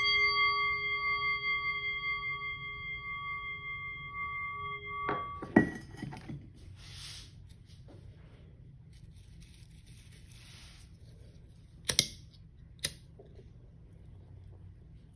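A struck bell rings with a steady, slowly wobbling tone that fades and is damped with a knock about five seconds in. Dry rustling of a dried-flower and herb bundle being handled follows, then two sharp lighter clicks about twelve and thirteen seconds in.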